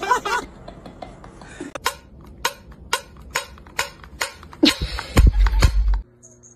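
Fingers clicking on the metal lid of a small cat-food tin, sharp clicks about two a second, followed by a louder burst of thumps and rustling that cuts off suddenly.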